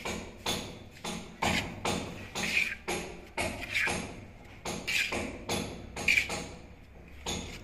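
A mason chipping clay tiles to shape with a hand tool: a steady run of sharp knocks and taps, about two a second, some with a short ringing clink.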